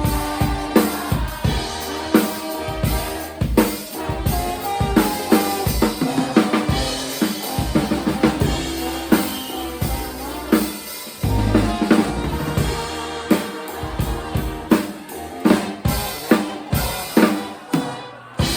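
Live band music driven by a drum kit, with bass drum and snare hits keeping a steady beat under sustained instrument chords.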